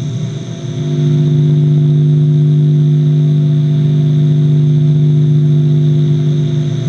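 Experimental drone music: a low, steady droning chord of several held pitches that settles in about a second in after a brief dip in level, with a faint high hiss above it.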